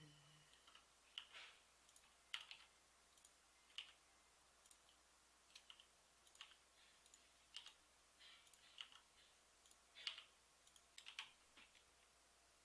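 Faint, scattered clicks of a computer mouse and keyboard, irregular, about one a second.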